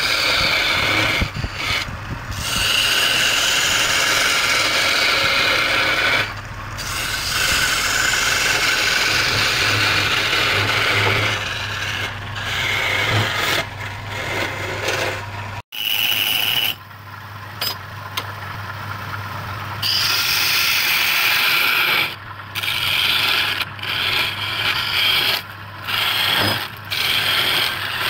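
Wood lathe turning a wooden cylinder while a hand-held chisel cuts into it: a steady hissing scrape over a low, even motor hum. In the last several seconds the scraping stops and starts again several times as the tool is lifted off and set back on the wood.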